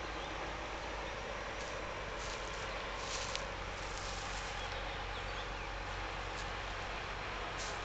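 Diesel engine of a heavy Iveco articulated truck running steadily at low revs as it crawls along with an oversized load, with a few short ticks about three seconds in and near the end.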